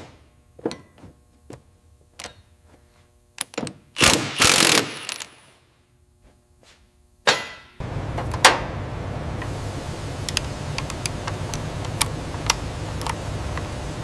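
Tools clicking and clanking on metal parts during tractor reassembly: a string of separate sharp knocks, with a short loud hiss about four seconds in. From about eight seconds a steady low noise takes over, with scattered ticks on top.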